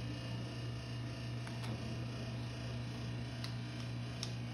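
Microwave oven running with a steady hum, with a few faint clicks over it.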